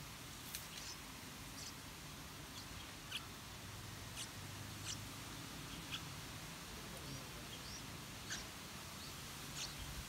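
Yellow-vented bulbul nestlings giving short, thin, high-pitched begging squeaks, about a dozen scattered unevenly through, at the nest while a parent feeds them.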